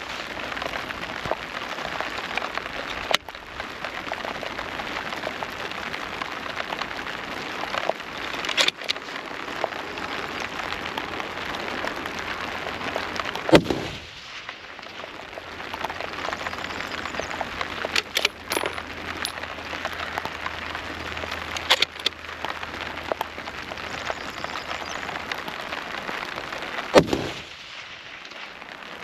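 Steady rain hissing and pattering, with two sharp, loud cracks, one about halfway through and one near the end, taken for shots from the Tikka T3X TAC A1 .308 rifle. Several smaller clicks and knocks come in between.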